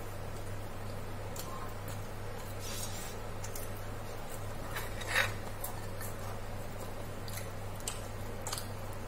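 A person eating a snack: scattered faint crunches and clicks, with one louder crunch a little after five seconds in, over a steady low hum.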